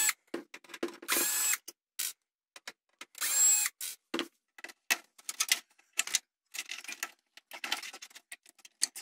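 Cordless drill-driver whirring in three short runs, backing out the power supply's mounting screws, followed from about four seconds in by quick clicks and rattles of metal parts being handled.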